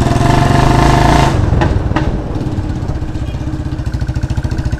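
Royal Enfield Bullet 350's single-cylinder engine running through a free-flow bend pipe and an empty, baffle-less silencer: a loud, fast, even exhaust thump while riding. The throttle eases a little over a second in, and two short sharp cracks follow.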